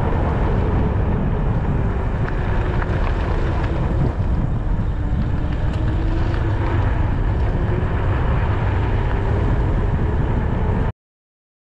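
Wind buffeting an action camera's microphone during an e-bike ride on asphalt, a steady low rumble with a faint whine that dips and rises in pitch. It cuts off suddenly near the end.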